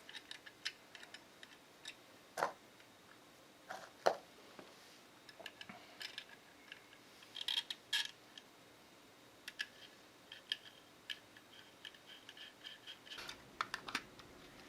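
Scattered light clicks and taps of small hardware being handled while a CPU liquid cooler's pump block is fitted with its clips and screws, with a couple of louder knocks about two and a half and four seconds in.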